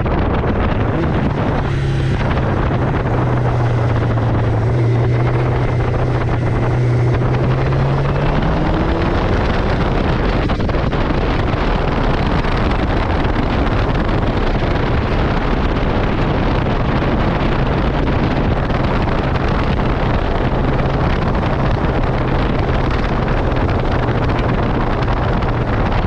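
Wind rushing over the microphone on a moving motorcycle, with the steady drone of the 1985 Honda CB700SC Nighthawk's inline-four engine underneath. The engine note rises about eight seconds in, then settles back to a steady cruise.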